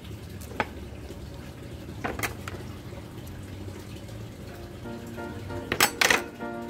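Soft background music plays throughout, with a few sharp clicks from kitchen scissors snipping and being handled on a plastic cutting board; the loudest cluster of clicks comes near the end.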